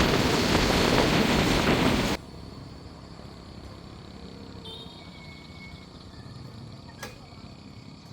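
A loud, steady rushing noise that cuts off abruptly about two seconds in, leaving quiet outdoor background with a brief high chirp and a single sharp click near the end.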